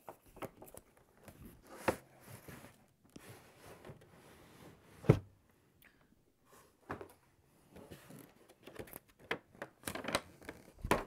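Packaging being cut and opened with a knife: scraping, rustling and scattered knocks of the box and its contents, the loudest knock about five seconds in.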